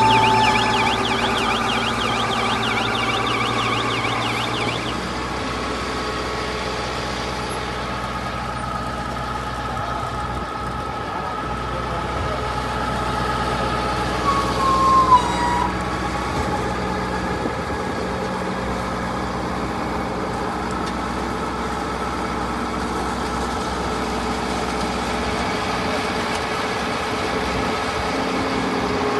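Husk baling machine running with a steady hum of several held tones. A warbling high tone sounds over it for the first few seconds, and a brief sliding tone comes about fifteen seconds in.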